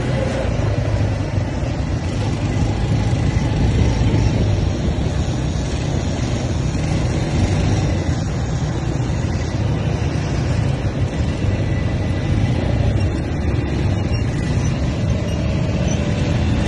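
ATV quad bike engine running under way over a dirt track, heard from aboard as a steady, dense rush of engine and riding noise.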